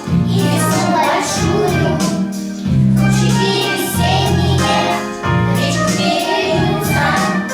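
A group of young children singing a song together over a recorded backing track with a steady bass line.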